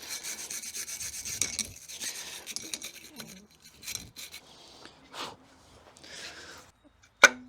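Rust being scrubbed off a metal water pump pulley with an abrasive: dense rasping for about the first two seconds, then scattered strokes. Near the end comes a single sharp metallic clink with a short ring.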